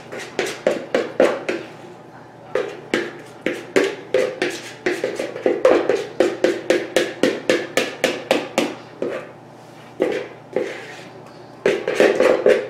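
A spoon knocking and scraping against the inside of a mixing bowl, about three to four quick taps a second with a couple of short pauses, as beer bread batter is worked out into a loaf pan.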